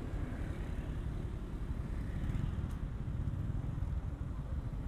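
Honda Verza 150's single-cylinder engine idling at a stop, with other motorcycles and scooters running close by in traffic: a steady low rumble.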